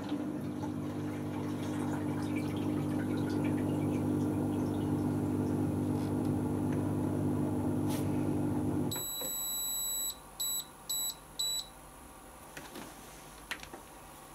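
Hotpoint Aquarius+ FDW70 dishwasher's drain pump running with a steady hum, cutting off about nine seconds in. The control panel then gives one long beep followed by three short beeps.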